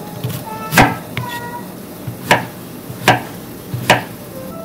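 Kitchen knife slicing vegetables (onion, then zucchini) on a wooden cutting board: four sharp knocks of the blade hitting the board, unevenly spaced.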